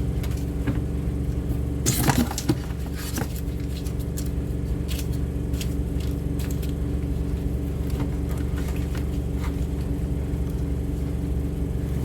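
Washing machine running with a steady hum, under light clicks and rustles of cat food packaging being handled; a louder clatter about two seconds in.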